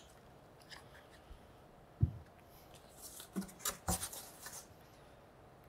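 Handling sounds: a single dull thump about two seconds in, then a cluster of rubs, squeaks and clicks from polystyrene foam packaging as its top insert is lifted off the box.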